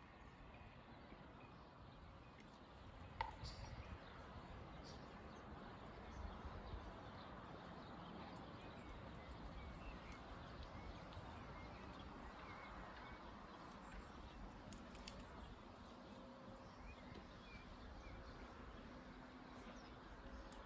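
Faint open-air ambience over a distant town and countryside: a steady low rumble and hiss, with scattered small bird chirps. There is a single sharp click about three seconds in.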